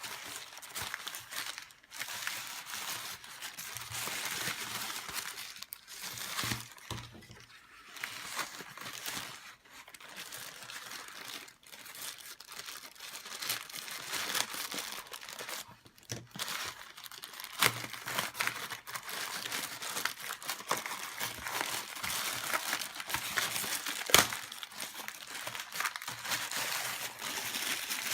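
Plastic packaging being handled, crinkled and torn open by hand in irregular crackling bursts with short pauses, and one sharp click late on.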